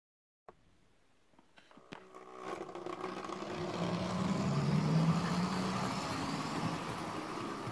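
OO gauge model diesel locomotive and coaches running along the track: the motor and wheels make a steady running noise. It starts after a moment of silence with a few light clicks, grows louder over the first few seconds and is loudest about five seconds in.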